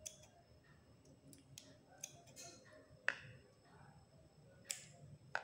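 Scissors trimming the ends of a silk-thread tassel: a handful of faint, sharp snips a second or so apart, the loudest about three seconds in.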